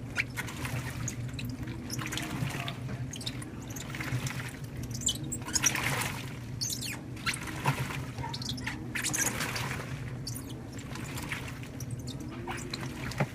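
2012 LG top-load washer agitating a heavy-duty load of towels and shoes: water sloshing and churning over a low motor hum that rises and falls with each stroke. Rubber shoes squeak against the drum every now and then.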